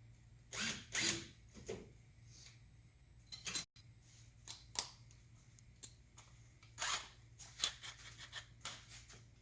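Hand tools and metal engine parts being handled on a workbench: irregular clicks, clacks and short scrapes of metal on metal.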